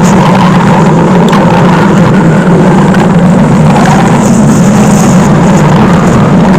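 Cartoon stomach-growl sound effect played on a loop: a loud, steady, deep rumble with no break.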